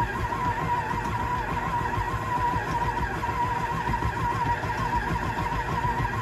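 Electric mixer running at speed, beating cookie dough of flour and oil: a steady motor whine that wavers slightly in pitch over a low rumble.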